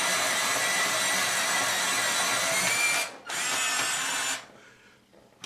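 Afmat fully automatic electric pencil sharpener grinding an extra-thick drawing pencil: a steady motor-driven grind that breaks off for a moment about three seconds in, runs about another second, then stops with the point finished.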